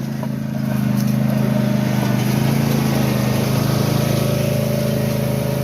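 A vehicle's engine running steadily, getting louder about a second in and then holding.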